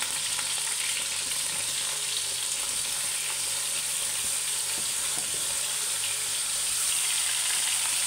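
Hot oil with fenugreek seeds sizzling steadily in a pan as chopped eggplant goes in and starts to fry.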